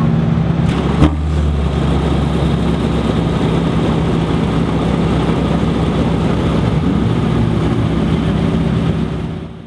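Porsche 918 Spyder's V8 engine idling steadily. A brief sharp knock comes about a second in, and the sound fades out near the end.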